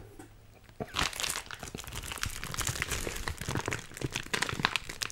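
Plastic shrink-wrap around two bottles of sauce crinkling as it is squeezed and handled close to the microphone, starting about a second in.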